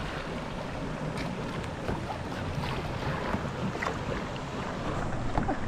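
Water lapping and splashing around a sea kayak, with a few faint short splashes, under steady wind noise on the microphone.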